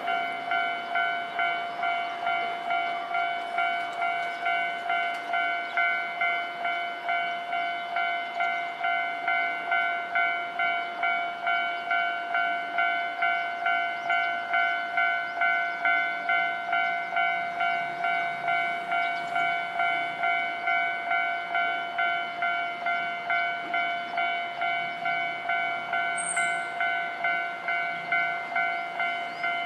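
Japanese railway level-crossing warning bell ringing, an electronic ding at about two strikes a second, steady without a break: the signal that the crossing barriers are down for a train.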